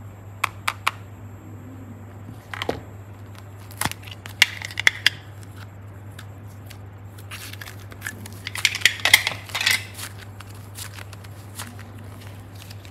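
Plastic popsicle-shaped slime containers handled over a glass dish: scattered clicks and taps of hard plastic, with short rustling and squishing as green slime is worked out of the mould, busiest about two-thirds through. A low steady hum sits underneath.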